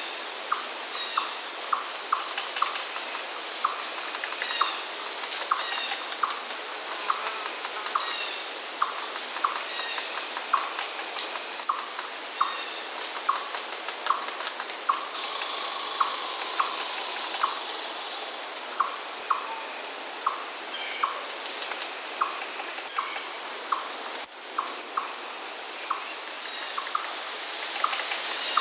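Steady high-pitched chorus of crickets or similar insects, with a short call repeating about every half second underneath and a few sharp clicks near the end.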